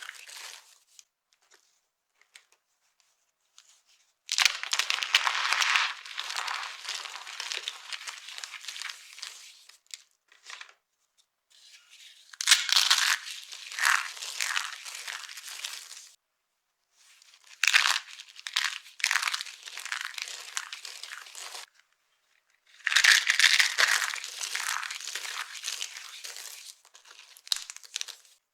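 Dry soap being crushed, crunching and crumbling in four bouts with short silent pauses between them, after a near-silent first four seconds.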